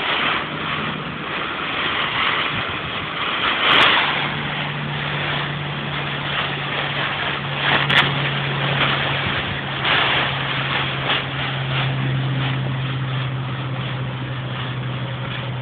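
Crinkling and rustling of a silver foil emergency blanket being swung and moved about, with a few sharper crackles. A steady engine hum starts about four seconds in and keeps going underneath.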